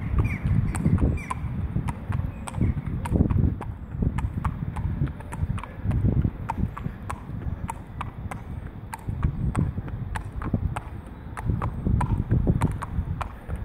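A horse's hooves clip-clopping on a tarmac road at a walk, an even run of sharp knocks about two to three a second, under low rumbles that come and go.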